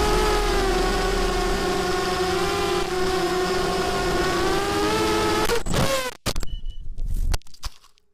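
Racing quadcopter's 2206 brushless motors and 6x4.5 props whining in flight, heard from the onboard camera, the pitch wavering with the throttle. About five and a half seconds in the whine swoops down and up, then breaks into choppy bursts and stops.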